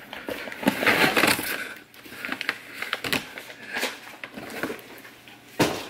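Crinkling and rustling of a large, shiny plastic coffee bag as it is pulled out of a cardboard mailing box and handled. It comes as an uneven run of crackles and scrapes, busiest in the first second and a half.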